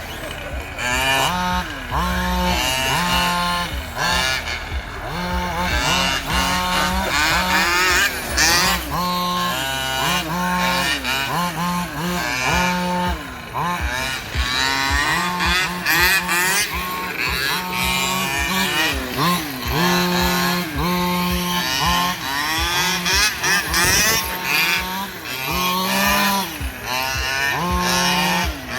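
Several gas-powered 1/5-scale RC cars' small two-stroke engines revving up and down as they race, their overlapping whines rising and falling over one another.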